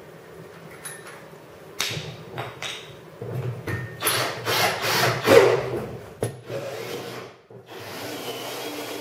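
Cordless drill driving a 2-inch hole saw through the wall of a plastic 55-gallon drum: a few knocks, then a rasping cut that is loudest about five seconds in, and the drill running more steadily near the end.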